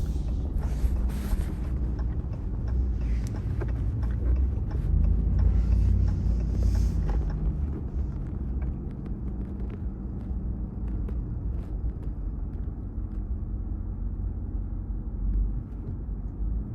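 Ram TRX's supercharged 6.2-litre V8 truck running, a steady low rumble with a faint hum, heard from inside the truck.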